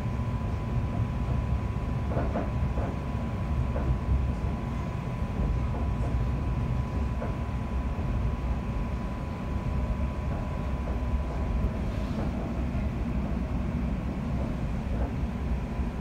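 Interior noise of a London Overground Class 710 electric multiple unit running at speed: a steady low rumble of the wheels on the track, with a thin steady high tone that fades out about halfway through.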